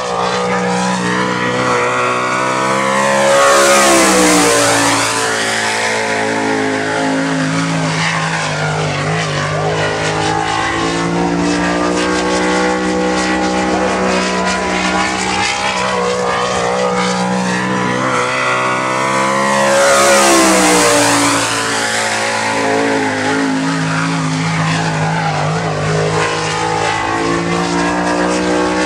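Dirt sprint car engine at racing speed, lapping the track alone. It is loudest twice, about sixteen seconds apart, as it passes close with a falling pitch, and its note rises and falls around the rest of the lap.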